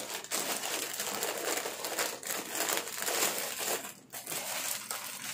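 Plastic packaging crinkling and rustling as a polythene PPE kit bag and its plastic-wrapped contents are handled and pulled out, a dense run of small crackles with a brief lull about four seconds in.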